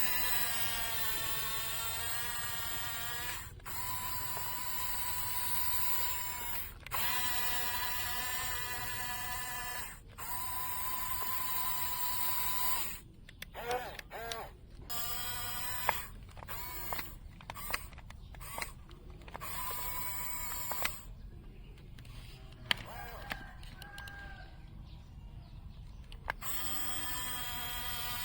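Small electric gear motors of a Huina remote-control toy excavator whining as its functions are driven, in runs of about three seconds each with brief stops between, then a string of shorter stop-start runs.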